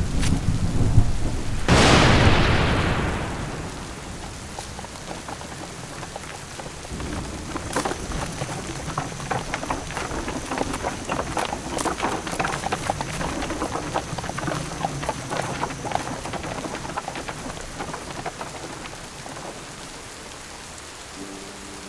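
Rain falling, with a clap of thunder about two seconds in that rumbles away over a couple of seconds, then steady rain patter full of sharp drop hits that thins out near the end.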